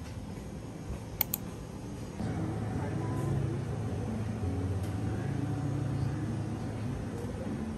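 Indistinct background chatter and bustle of a bakery shop floor, after two quick sharp clicks about a second in.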